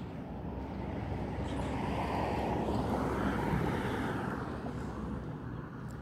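A car passing on the street, its tyre and engine noise swelling to a peak about three seconds in and then fading away.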